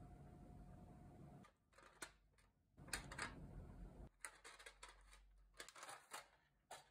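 A faint steady hum that cuts off suddenly about one and a half seconds in, then a scattering of light clicks and taps as small nail-powder jars and sponge-tip applicators are set down on a paper towel.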